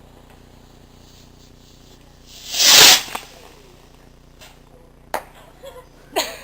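A firework going off: a short rushing whoosh swells and dies away about two and a half seconds in, and a single sharp crack follows a couple of seconds later.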